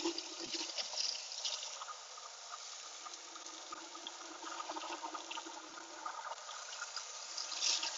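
Chicken wings sizzling with a steady crackling hiss on a pellet grill's grate at high heat, with a few light clicks as metal tongs turn them.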